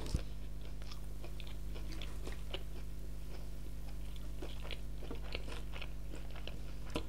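People eating fried chicken and fries: soft chewing and many small, scattered crunches over a steady low hum.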